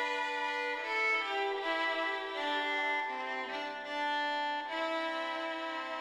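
Slow instrumental background music: long held notes that change pitch every second or so, several sounding together.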